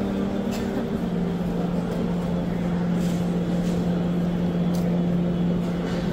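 A steady low mechanical drone that drops slightly in pitch about a second in, over a noisy background.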